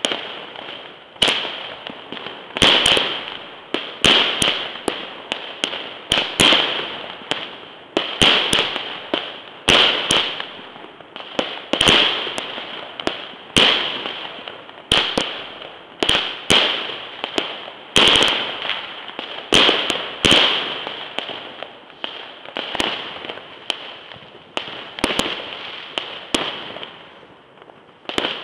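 Consumer firework battery (cake) firing shot after shot: a sharp bang about every second and a half, each with a fading crackling hiss, with a short lull near the end.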